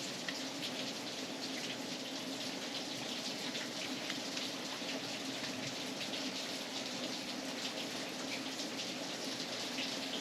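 Steady hiss of rain falling, with scattered faint ticks of drops.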